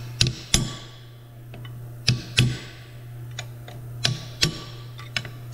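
Hammer striking a steel drift punch to tap a bearing race down into a Bonfiglioli final drive gearbox housing: sharp metal-on-metal taps, mostly in pairs about two seconds apart. The race is being tapped around its edge so it seats straight rather than cockeyed.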